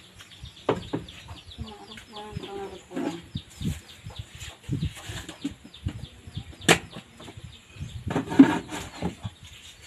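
Chickens peeping over and over in short, high, falling calls, with scattered knocks and rustles, a sharp click, and a louder burst about eight seconds in.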